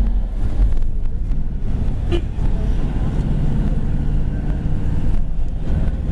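Road traffic: cars running along a busy street, a steady low rumble of engines and tyres.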